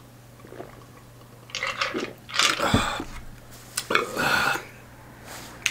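A person drinking a highball from a glass over ice, swallowing, then breathing out after the drink. There is a knock about halfway through as the iced glass is set down on the table.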